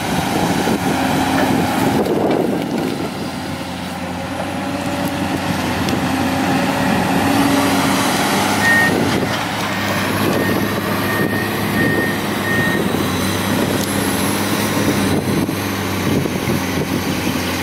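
Komatsu PC200 hydraulic excavator's diesel engine running steadily as the boom and bucket work. About halfway through there is a short run of high beeps.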